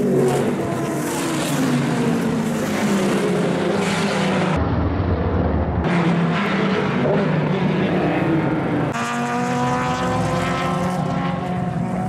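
Racing prototype engines at high revs as cars pass on track, the sound changing abruptly a few times between shots. Near the end a single car's engine note climbs steadily under acceleration.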